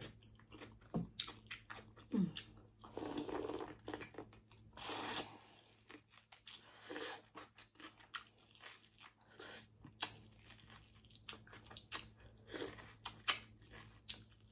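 Close-miked eating: crunching bites and chewing, with many sharp wet mouth clicks and a few louder crunches, over a faint steady low hum.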